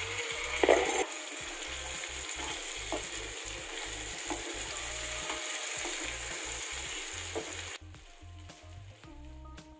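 Potato cubes sizzling in hot oil in a frying pan while a spatula stirs them, with a louder knock of the spatula about a second in and lighter knocks after. The sizzle drops away suddenly near the end.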